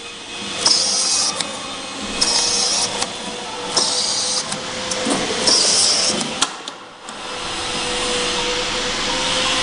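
Automatic flat-surface labeling machine running, with a steady hum underneath. A short hissing burst comes about every second and a half as a label is fed onto each bottle passing on the conveyor, with light clicks between them. The bursts stop about two-thirds in and a steadier rushing noise follows.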